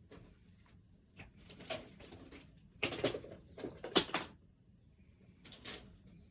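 A few short knocks and rustles of something being handled, the loudest about four seconds in.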